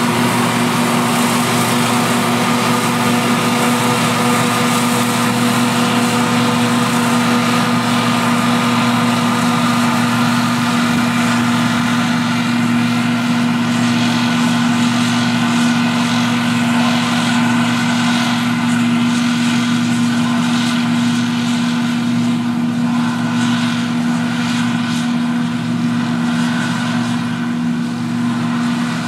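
John Deere S550 combine harvester running under load while cutting and threshing wheat: a loud, steady machine drone with a strong low hum over a hiss. The hiss thins and the level eases a little in the last third as the machine pulls away.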